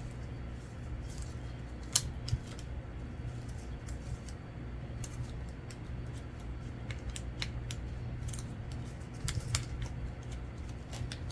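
Scissors snipping paper in scattered short, sharp clicks, with a louder snap about two seconds in and quicker runs of snips later, over a steady low hum.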